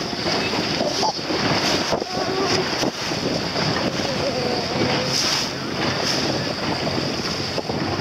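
Wind buffeting the microphone over the rush and splash of choppy sea water around a moving boat.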